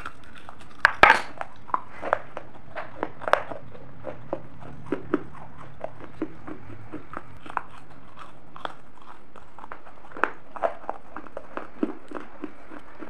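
Close-miked biting and crunching of hard pieces of a baked clay gullak (money pot): sharp crunches, the loudest cluster about a second in, then scattered chewing crunches every half second or so, with another burst around ten seconds in.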